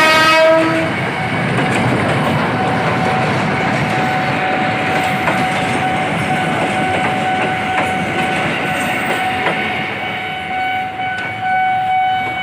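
A train horn's blast cuts off about a second in, then a train runs past with a steady rumble and wheels clicking over rail joints. A steady high whine joins about four seconds in.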